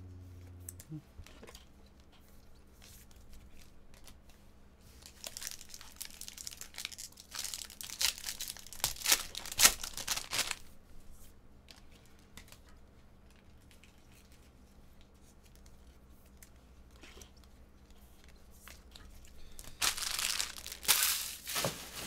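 Plastic wrapper of a trading-card pack being torn open and crinkled, in two bouts of crackling: a longer one from about five to ten seconds in and a shorter one near the end, with quieter handling of cards between.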